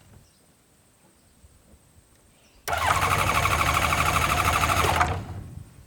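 Freshly rebuilt aircraft piston engine turning over for about two and a half seconds with a fast, even beat, starting suddenly about halfway in and cutting off.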